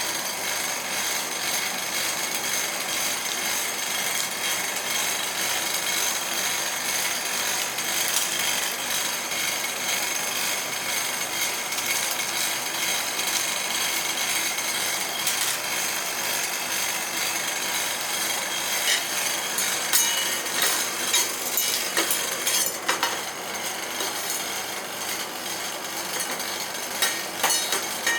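Metal spatulas scraping and tapping on the cold steel plate of an ice-roll pan as the mix is chopped and spread. Sharp clicks of the blades striking the plate come more often in the later part.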